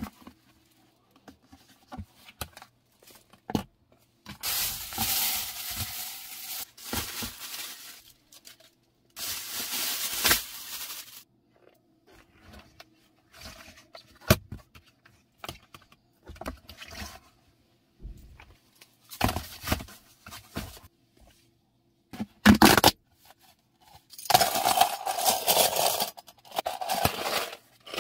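Collapsible accordion-style plastic car trash bin being stretched out, pressed down and its lid handled: plastic scraping and rustling in several bursts, with scattered clicks and a sharp knock.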